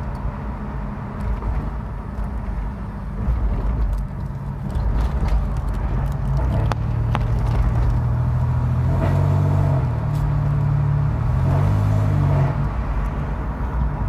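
2000 Toyota 4Runner running: a steady low drone that steps up and down in pitch. A fainter, higher hum joins it for a few seconds past the middle.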